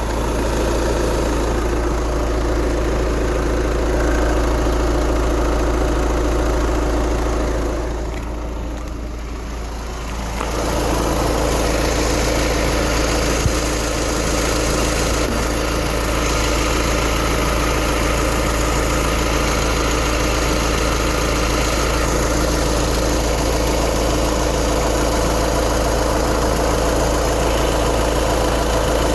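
2012 VW Jetta TDI's four-cylinder turbodiesel running at idle, with the steady, really loud, annoying noise that it makes in neutral. The owner wonders whether it is the throwout bearing. The sound drops off for a couple of seconds about eight seconds in.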